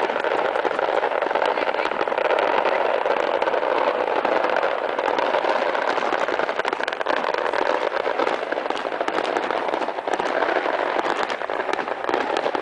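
Fireworks crackling continuously: a steady rushing hiss packed with many small rapid pops.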